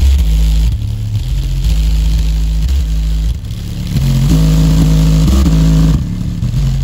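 Aiwa 5.25-inch woofer in a small cardboard box playing loud, deep bass notes that step from pitch to pitch, the plastic sheet over it buzzing with a hiss. The bass grows louder and more distorted from about four seconds in to about six.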